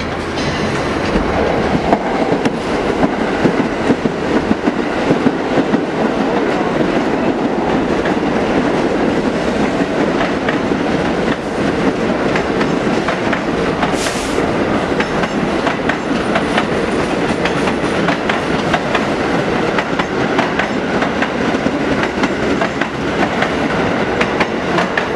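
Two Pullman-Standard R46 subway trains running through the station, a steady rumble of wheels on rail with a dense clickety-clack over the rail joints. A short sharp high burst cuts in about fourteen seconds in.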